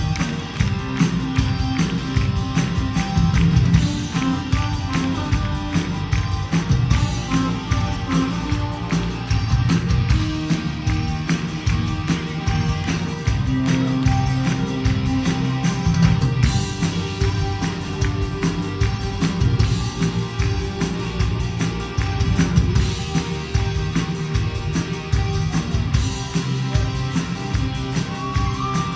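Live rock band playing, with a steady drum beat over bass and guitar.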